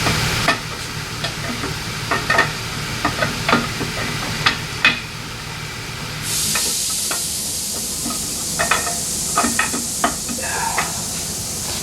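Light metallic clicks, knocks and scraping as the camshaft is worked out of an AMC 304 V8 block, its lobes catching on the cam bearings. A steady hiss comes in about six seconds in.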